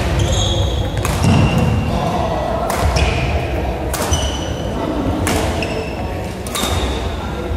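Badminton rally: about five sharp racket hits on the shuttlecock, roughly one every second and a half, echoing in a large sports hall. Short high squeaks of shoes on the wooden court come with them.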